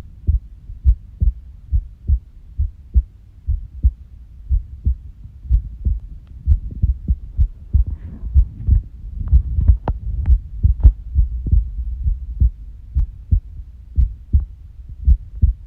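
A human heartbeat heard close up: a run of low, dull thumps in an uneven rhythm, crowding closer together and growing louder through the middle. This is the irregular heartbeat of an arrhythmia.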